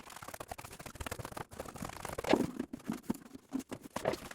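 Pencil scratching on wood in short, irregular strokes, with a few light knocks of handling, as the outline of the toilet drain hole is marked.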